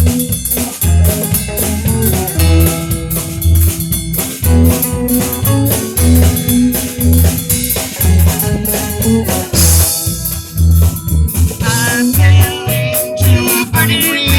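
A band playing guitar, bass and drum kit, with low bass notes and drum hits keeping a steady beat. There is a cymbal crash about ten seconds in, and a wavering high melody line near the end.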